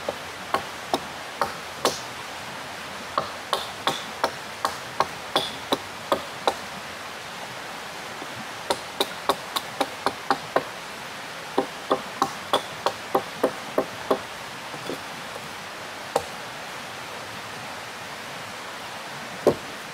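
A hand tool striking wood in quick, even blows, about two a second, in two runs of several seconds each, with a few lone blows near the end. A river rushes steadily underneath.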